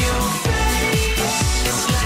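Background music: upbeat electronic pop with a steady kick-drum beat, about two beats a second.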